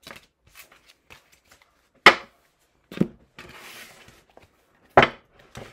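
Tarot card decks being handled on a tabletop: a few sharp knocks as decks are set down, about two, three and five seconds in, with a short rustle of cards sliding between them.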